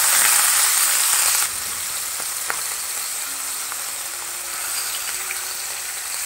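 Kingfish steaks sizzling as they fry in hot oil in a nonstick frying pan. The sizzle is loudest for about the first second and a half, then settles to a steadier, quieter level.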